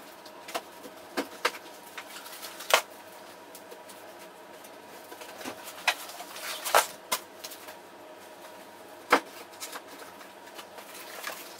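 Cardboard pencil boxes being set down and stacked on one another: about eight scattered light knocks and taps over a faint steady hum.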